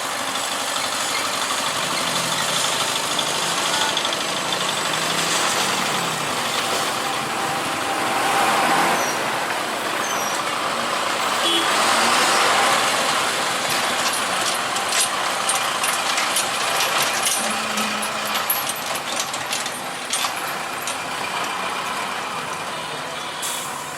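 Trucks and other motor vehicles crossing a railway level crossing, engines running and tyres rolling past, louder twice near the middle. A run of sharp rattles and knocks comes in the second half.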